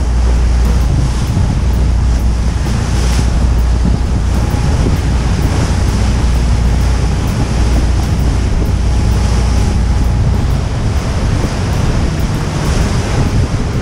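Wind buffeting the microphone in a steady low rumble over the rush of water and waves, aboard a moving tour boat.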